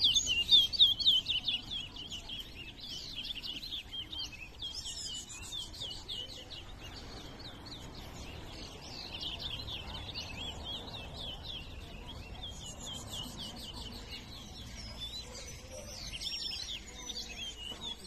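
Caged towa-towa (chestnut-bellied seed finch) singing in a song-race contest: rapid, high warbling phrases, loudest in the first two seconds, then coming one after another with short breaks.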